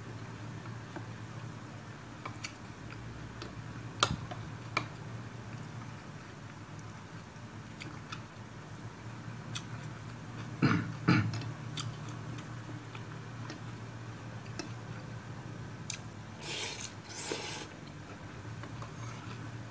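Someone eating rice noodles from a ceramic bowl with chopsticks and a metal spoon: soft chewing and a few sharp clicks of the utensils against the bowl, the loudest pair about eleven seconds in, and a brief noisy stretch near the end.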